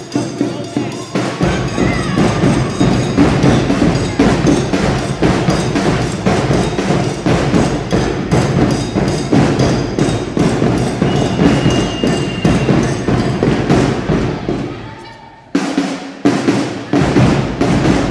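Drum-heavy dance music with a steady, hard-hitting beat. It dies away near the end and starts again with sharp hits about a second and a half later.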